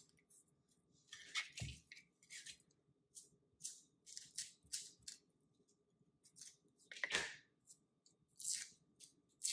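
Dry onion skin crackling as a yellow onion is trimmed with a kitchen knife and its papery outer layer is peeled off by hand: short, irregular crisp crackles. Twice, about a second and a half in and about seven seconds in, a louder crackle comes with a dull knock on the plastic cutting board.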